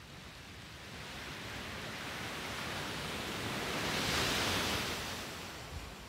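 Low surf on a sandy beach: the wash of the sea builds steadily, peaks about four seconds in as a wave breaks and runs up the sand, then fades.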